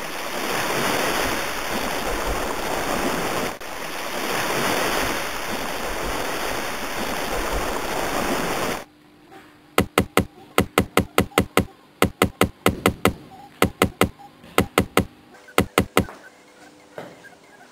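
A loud, steady rushing noise like surf for about nine seconds, then a sudden cut to an irregular run of sharp clicks, a few per second, lasting about six seconds.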